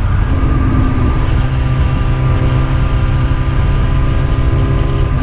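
Motorcycle engine running at a steady cruising note, dipping slightly in pitch near the end, under heavy wind rumble on the rider's camera microphone.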